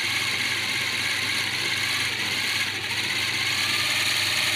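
Small brushed DC motors of a homemade RC car running steadily on the driven axle, a high-pitched whir with a low hum underneath.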